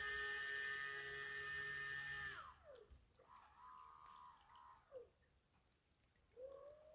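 RC boat's small brushless electric motor and propeller running with a steady high whine, then winding down in pitch about two seconds in as the throttle is let off; after that only a few faint short whirs.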